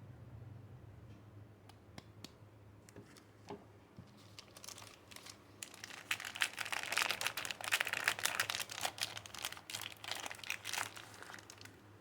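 A soap bar's wrapper being crinkled and pulled open by hand. A few light clicks come first, then a dense run of crinkling from about halfway in, easing off near the end.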